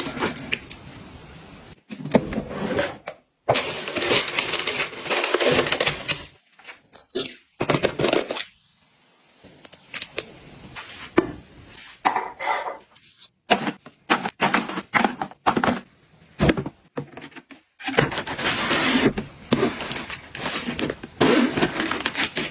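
Small hard objects being handled and set down, a run of clicks and taps mixed with rustling, in stretches broken by short pauses.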